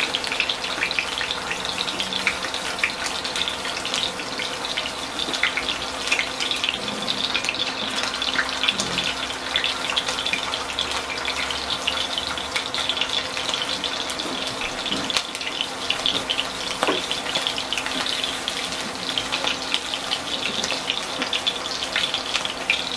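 Meatballs shallow-frying in hot oil: a steady, dense crackling sizzle.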